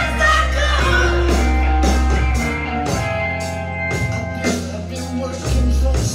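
A song with a singing voice and a band accompaniment, played from a vinyl record and heard through the room from vintage hi-fi loudspeakers: Pioneer CS-757 speakers driven by an Akai AM-U3 amplifier.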